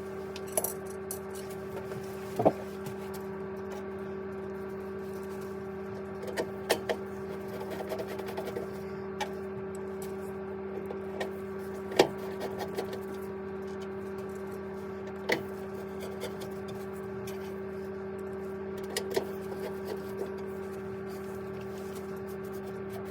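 Vaillant turboMAX gas boiler running after its service, giving a steady machine hum with a higher whine above it. Scattered light clicks and knocks sound over the hum, the sharpest about twelve seconds in.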